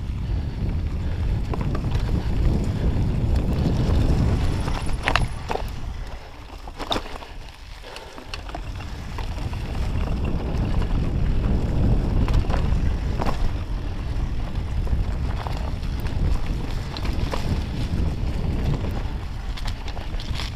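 Mountain bike rolling along a dirt singletrack: a steady low wind rumble on the handlebar microphone with tyre noise over dirt and leaves, and occasional clicks and knocks from the bike. The rumble eases for a couple of seconds about six seconds in.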